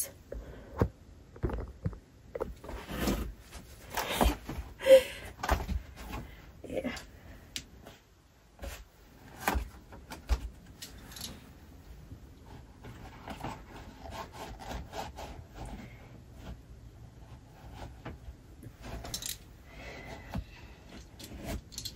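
Handling noises: scattered knocks and taps with rustling of clothing as a pair of pointed pumps is put on by hand. The loudest knocks come in the first few seconds, followed by softer rustling and light tapping.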